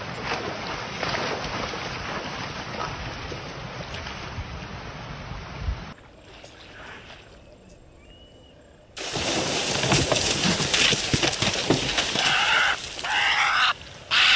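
Water splashing and sloshing as a crocodile moves through shallow water, then after a quieter moment a sudden, much louder burst of splashing about nine seconds in as a crocodile strikes at a wildebeest. Loud cries ride over the last couple of seconds.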